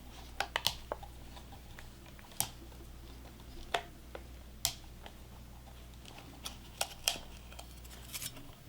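Scattered light clicks and taps of a small Phillips screwdriver working the screws out of an Astro A50 headset's plastic housing, about ten sharp ticks spread unevenly over the stretch, over a faint steady low hum.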